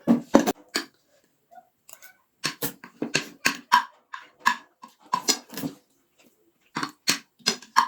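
Close-up eating sounds: a person slurping and chewing food in a string of short, irregular mouth noises with brief pauses between them.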